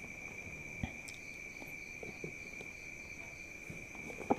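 Steady, unbroken high trill of crickets in the background, with a few faint clicks as a cardboard box is handled.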